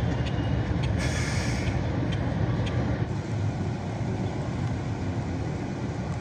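Steady low rumble of motor vehicles, with a brief hiss about a second in.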